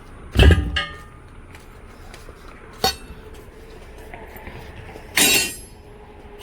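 Metal clanks from truck-tyre repair work: a heavy ringing clank about half a second in, a short sharp knock near the middle, and another loud ringing clank just after five seconds.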